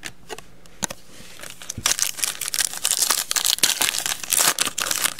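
A 2016 Panini Certified football foil card pack being torn open and crinkled by hand: a few light clicks in the first second, then about three seconds of dense crackling of the wrapper.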